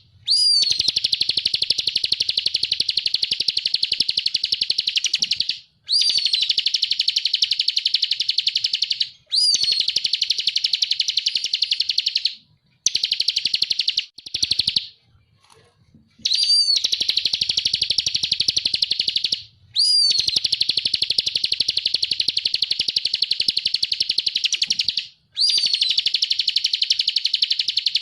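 Ciblek kristal, a prinia, singing in long, rapid, high trilled bouts a few seconds each. Each bout opens with a short rising-and-falling whistle, and brief pauses separate the bouts, with a longer pause about halfway through.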